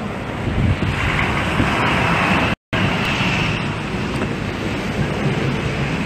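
Snowstorm wind rushing over a phone microphone, a steady noisy rush with city traffic noise beneath it. The sound cuts out completely for a split second about two and a half seconds in.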